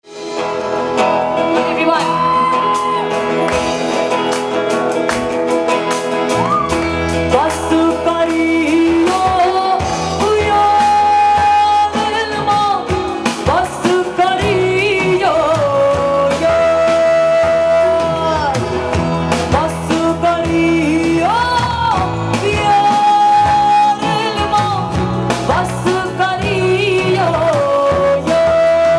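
Live Sufi-rock band playing: a bending melody over electric guitar, bass guitar and a drum kit, with a woman singing into a microphone. The bass comes in about six seconds in.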